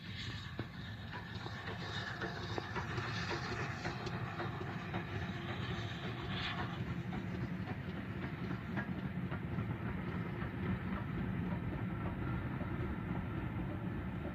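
Distant steam-hauled passenger train running past: a steady low rumble with faint clicks of wheels over rail joints. A hiss sounds over it and cuts off suddenly about six and a half seconds in.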